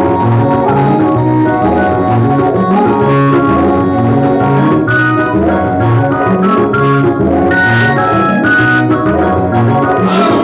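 Instrumental music with sustained chords over a steady, evenly repeating bass beat.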